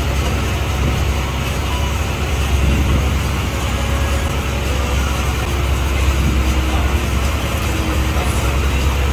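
Steady low drone of a fishing boat's engine running.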